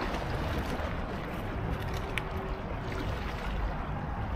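Steady rush of wind and sea water at the shore, heaviest in the low rumble, with a faint click about two seconds in.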